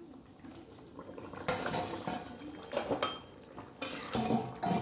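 Steel bowl and spatula clanking and scraping against a metal kadai as fried fish pieces are tipped into the curry, several sharp metal-on-metal clatters.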